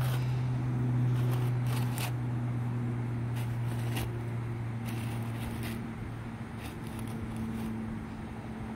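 Steady low hum of an idling engine, easing slightly after about six seconds, with a few scattered scrapes and knocks as a heavy rock is turned over by hand on a plastic bed liner.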